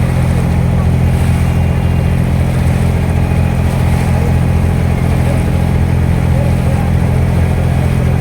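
Abra water taxi's engine running steadily under way, a loud low engine drone.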